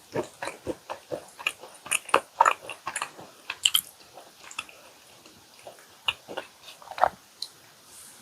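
Close-miked chewing and biting of chocolate chip cookies dunked in milk: a quick run of sharp chewing clicks over the first four seconds, thinning to a few, with one louder click about seven seconds in.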